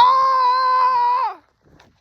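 A man screams in pain, one long held cry that drops in pitch and breaks off after about a second and a half.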